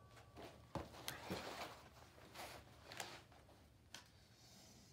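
Faint knocks and rustling of a shooter's rifle and tactical gear as he drops from standing into a seated firing position, a few separate light clicks about a second apart. A fading metallic ring dies away in the first second.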